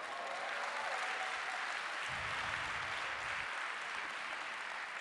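Large audience applauding, a steady dense clapping that builds right at the start and eases slightly near the end.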